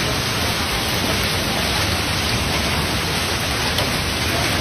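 Torrential rain mixed with hail pouring down, a loud, steady, even hiss.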